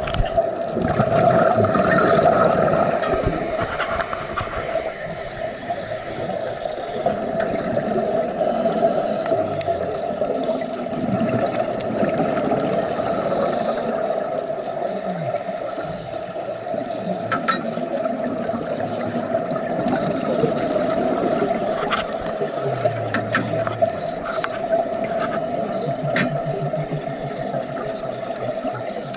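Underwater sound through a dive camera's housing: a steady muffled hum with the gurgling of scuba divers' exhaled bubbles, and a few sharp clicks.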